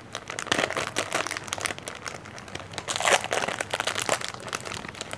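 Plastic popsicle wrapper of an Aice Mango Slush crinkling and crackling as it is pulled open by hand, in irregular bursts with a louder crackle about three seconds in.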